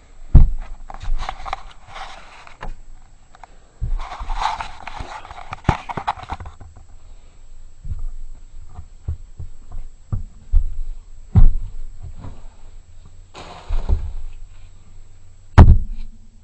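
Irregular heavy thuds and knocks on wooden attic joists and boards as a person clambers across them, with bouts of rustling in between.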